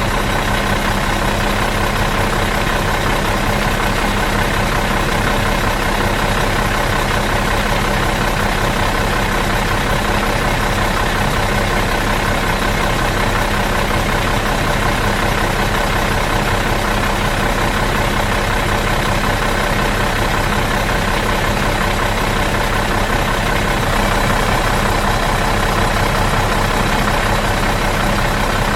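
Bus engine idling in neutral, running steadily and evenly with a constant low drone.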